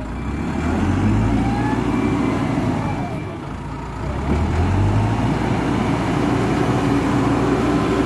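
Hidromek 102B backhoe loader's diesel engine working the front loader bucket, revving up under load about a second in and again around four and a half seconds in, easing off in between.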